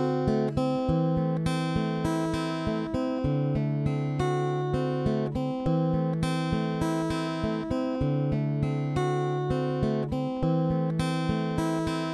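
Acoustic guitar music: picked notes in a steady rhythm, with the chord changing every couple of seconds.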